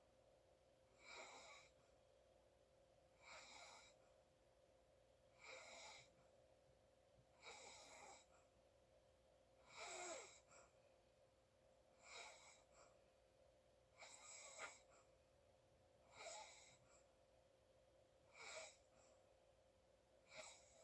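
Sleeping person snoring softly, a short wheezy breath about every two seconds, over a faint steady hum.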